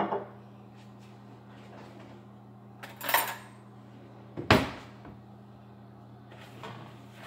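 Kitchen handling noises on a granite counter: a bottle knocks down at the start, a brief rustle about three seconds in, and a sharp knock a second later, the loudest sound, all over a steady low hum.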